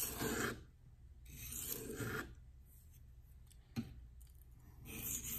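Steel knife blade stroked along a 240-grit Venev resin-bonded diamond waterstone, a scratchy rasp with each pass: three strokes with pauses between, and a light click about four seconds in.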